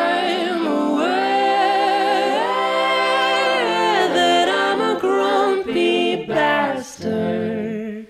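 Music: layered, choir-like singing with vibrato over a held low note. It breaks up into shorter phrases in the second half.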